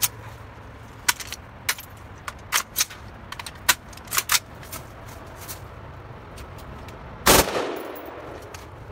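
A short, loud burst of automatic fire from an AR-style rifle about seven seconds in, with its echo trailing off afterwards. Before it, a scattering of single sharp cracks.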